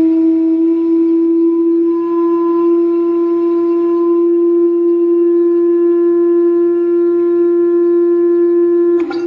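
Steady electronic tone from a frequency generator driving a sand-covered vibrating plate: one held pitch with overtones, creeping slowly upward in pitch. It breaks off with a click about nine seconds in.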